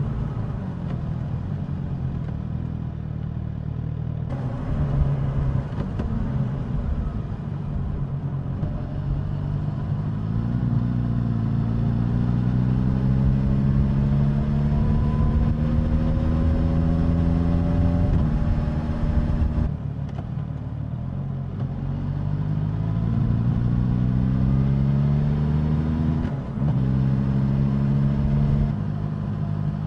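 Suzuki GSX-S1000's inline-four engine and exhaust under way, the pitch climbing steadily as the bike accelerates, falling back, then climbing again, with a brief dip near the end.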